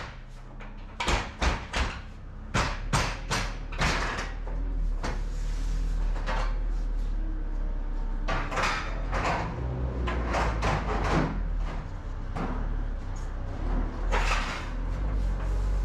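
Knocks and clatters from work on the side of a curtainsider truck trailer. Several sharp knocks come in quick succession in the first few seconds, then a few rougher, scraping clatters, all over a steady low rumble.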